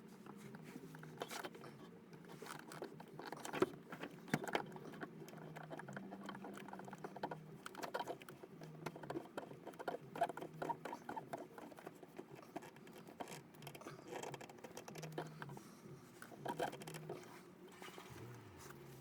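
Irregular small scrapes, taps and clicks of hands working on water-heater plumbing fittings, over a low steady hum.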